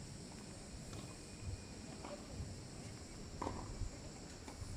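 Strong wind buffeting the microphone with a low rumble, and a tennis ball struck by a racket about three and a half seconds in, with a few lighter knocks around it.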